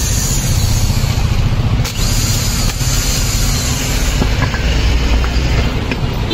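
A steady low engine rumble, with a few light clicks of metal parts being handled.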